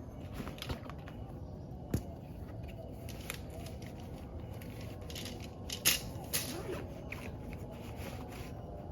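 Scattered short clicks, taps and rustles over a steady low background rumble, with a sharp knock about two seconds in and a cluster of louder clicks near six seconds.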